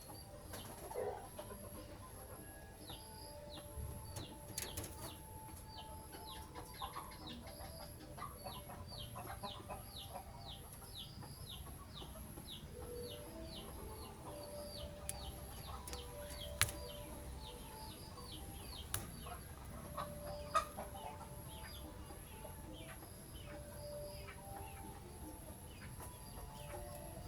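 Bird calling in a long series of short, high, downward-sliding chirps, about two a second, over a faint steady high-pitched tone, with a few sharp clicks in the middle.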